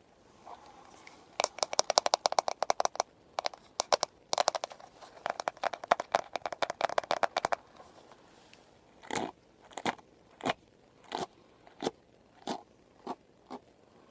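Close-miked haircut sounds from scissors and a brush working hair: two runs of rapid, crisp clicking, then about eight separate short strokes a little over half a second apart.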